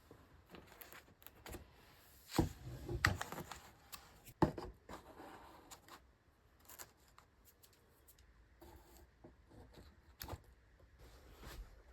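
Hands handling plastic seedling cells and a seedling tray: scattered light knocks, clicks and rustles, loudest a few seconds in.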